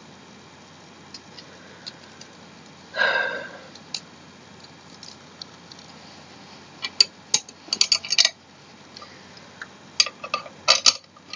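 Sharp little clicks and clinks of chair hardware (screws, washers, an Allen wrench) being handled, with a short scrape about three seconds in and quick runs of clicking about seven and ten seconds in.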